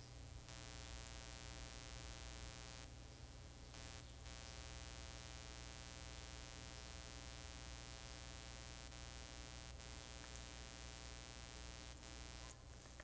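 Faint steady electrical buzz, a mains hum with many overtones. It cuts out briefly about three seconds in and stops just before the end.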